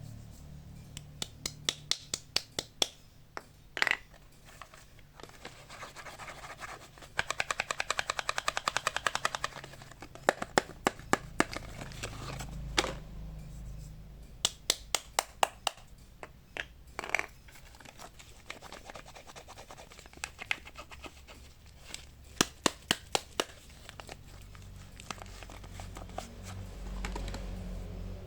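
Soap bars and their packaging being handled and opened by hand: a string of sharp scratches and clicks, with a fast run of about ten clicks a second around a third of the way in.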